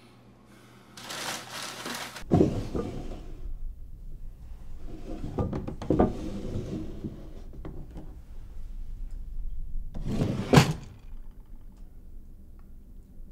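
Small wooden drawers of a dresser-top jewelry box being slid open and shut by hand, three separate times. Each brings wooden scraping and knocks, the last near the end the sharpest.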